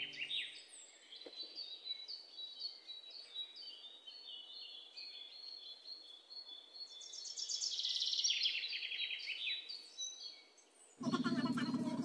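Birdsong sound effect: small birds chirping in quick runs of high notes, busiest about seven to nine seconds in. Guitar music fades out at the start, and a louder, fuller sound cuts in suddenly about a second before the end.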